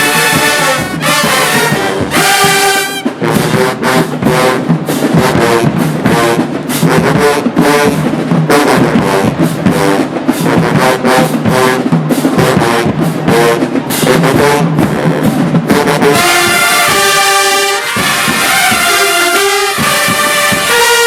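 Marching band brass section playing loud held chords, with a long middle stretch where dense, rapid drum hits take over under the horns before the brass chords return.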